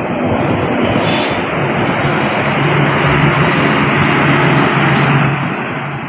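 A large intercity coach driving past: engine hum and tyre noise swell to a peak a few seconds in, then fade as it goes away.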